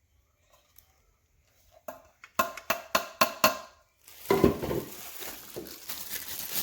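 Hard plastic juicer parts knocking together, about seven sharp clacks in quick succession, followed by plastic packaging crinkling and rustling as parts are unwrapped.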